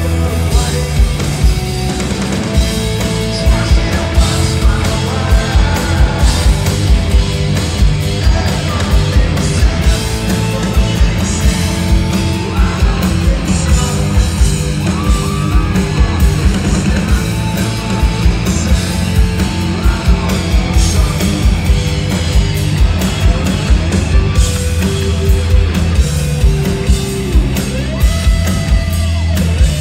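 A hard rock band playing live: distorted electric guitars, bass and a steady drum beat, with a voice singing over it at times, in a large hall.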